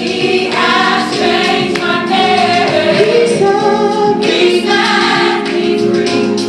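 Gospel choir singing in close multi-part harmony, the voices holding and moving through sustained chords.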